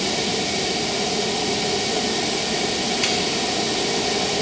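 Hydraulic press power unit running steadily at idle: a constant hum and hiss from its pump and motor, with a faint tick about three seconds in.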